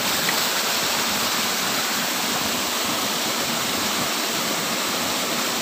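Steady rushing and splashing of a small cascade: fish-pond outflow water falling into a pool.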